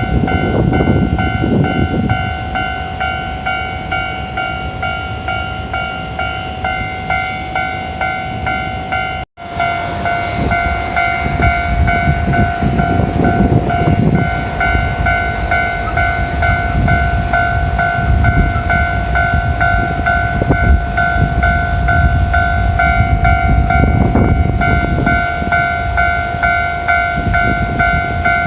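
Japanese level-crossing alarm ringing steadily in a repeating electronic clang, while heavy trucks rumble past. The sound cuts out for an instant about nine seconds in.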